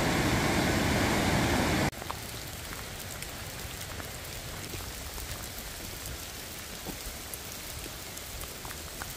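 Steady rain: a loud, even rush for about the first two seconds, then a sudden drop to a quieter hiss of rain with scattered faint drip ticks.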